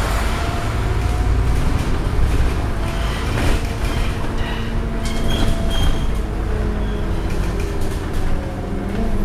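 Scania N230UD double-decker bus under way, heard from inside the upper deck: its nine-litre five-cylinder diesel engine runs over a steady low road rumble. A humming engine note settles in about three and a half seconds in, and the body and windows rattle now and then.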